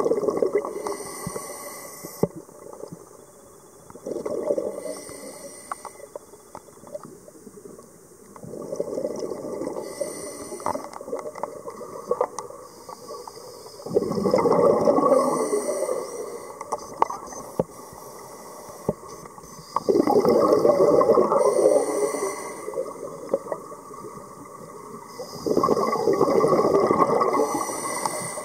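Scuba diver breathing through a regulator underwater: six loud bursts of exhaled bubbles, one about every five seconds, each lasting a second or two, with quieter gaps between breaths.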